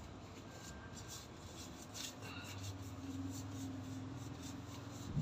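Gloved hands rubbing and wiping over freshly blacked-out tattooed skin: soft, irregular rubbing strokes. A faint steady low hum comes in about two seconds in.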